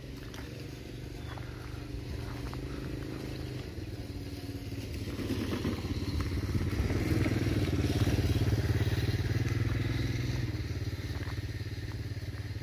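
Small motorcycle engine of a motorcycle-sidecar cart running past. It grows louder toward the middle, peaking about eight seconds in, then fades.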